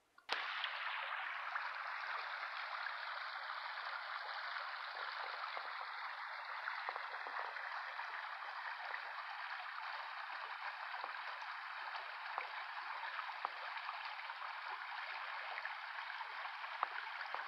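A woodland brook rushing over rocks: a steady, even rush of running water that starts abruptly just after the beginning.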